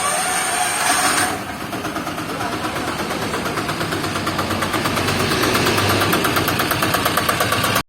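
Auto rickshaw diesel engine starting up with a short whine, then running at idle with a rapid, even beat; the sound cuts off abruptly near the end.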